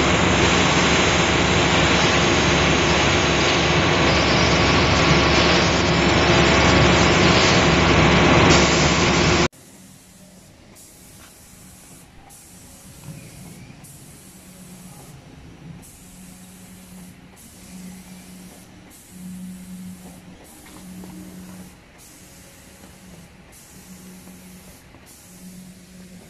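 Automatic spray-painting machine: a loud, steady hiss of the spray gun spraying paint for about the first nine seconds. It then cuts suddenly to a much quieter stretch where a high hiss switches on and off about once a second, with a low hum coming and going.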